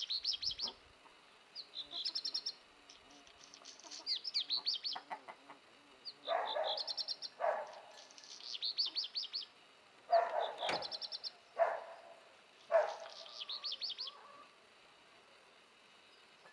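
A songbird singing short, rapid, high trilled phrases every couple of seconds, with several short, lower, harsher calls in between through the middle.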